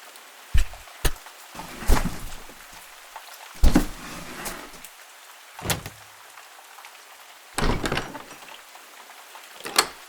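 A string of about seven separate impact sound effects, short thuds and hits a second or two apart, the loudest a little before the middle, over a steady rain-like background hiss.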